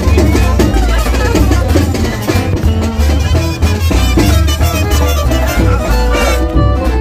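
Background music with a steady, heavy bass beat and a melody over it.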